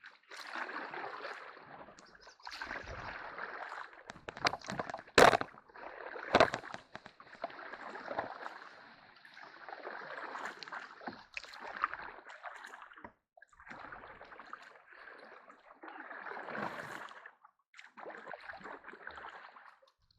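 Canoe being paddled: repeated paddle strokes swishing through the water, each a second or two long with short pauses between. There are two sharp knocks, about five and six and a half seconds in, the loudest sounds, as of a paddle striking the hull or wood.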